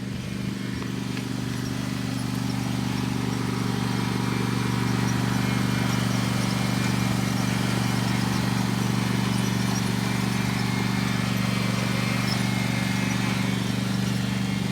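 Lawn mower engine running steadily at speed, growing louder over the first few seconds and then holding a constant pitch.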